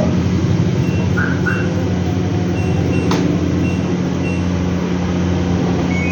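Steady low mechanical hum of serviced washing machines running in a function test, with a few faint short high beeps and a sharp click about three seconds in.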